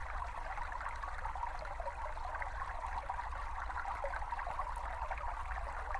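Recorded babbling brook: small stream water trickling and gurgling steadily over stones.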